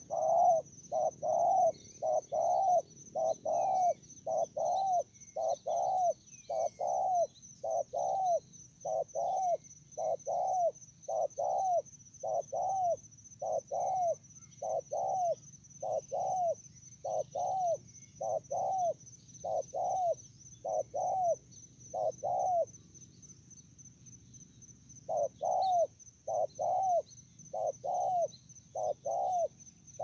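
A dove cooing: a long, even run of soft notes, about one every 0.7 seconds, breaking off for about two seconds near the end and then resuming. A steady high insect buzz runs underneath.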